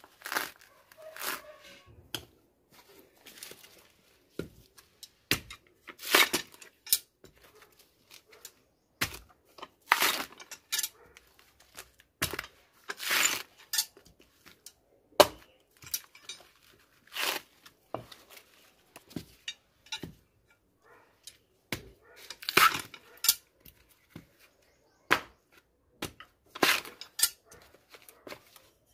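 Dry coconut husk being torn apart by hand: the coir fibres rip in short, irregular rasps with brief pauses between pulls.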